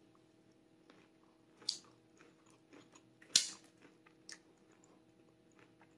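A person chewing a bite of pecan log roll, divinity candy coated in toasted pecans: a few scattered crunches, the loudest a little past halfway, over a faint steady hum.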